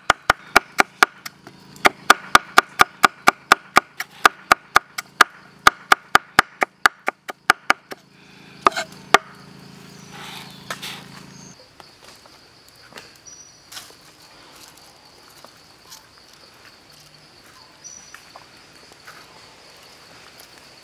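Cleaver chopping chilies and herbs on a wooden chopping block in fast even strokes, about four a second, stopping about nine seconds in. After that a steady high insect buzz with a few small handling clicks.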